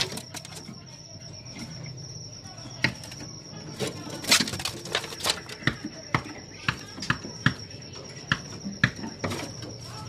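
Caged long-tailed shrikes moving about in wire cages: a run of sharp, irregular taps and clicks, a few a second, from about three seconds in, over a steady high-pitched whine and a low hum.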